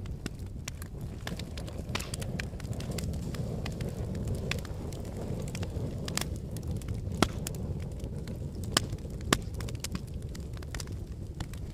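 Volcanic eruption or advancing lava flow: a steady low rumble with irregular crackling and popping, and three sharper cracks in the second half.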